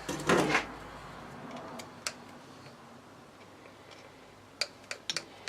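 A few sharp, isolated clicks and ticks of small hard objects being handled, one about two seconds in and a quick cluster near the end, over a quiet workshop background.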